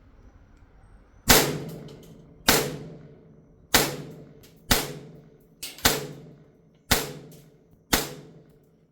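2011 STI Combat Master airsoft pistol firing seven shots, about one a second. Each sharp crack is followed by a short ringing decay.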